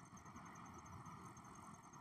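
Near silence: a faint steady hiss with a low rumble underneath, and a faint, rapid high-pitched pulsing.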